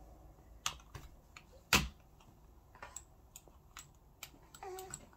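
Scattered clicks and taps from a small child's hands on a computer mouse and desk, about ten in all at uneven spacing. The loudest is a sharp knock a little under two seconds in.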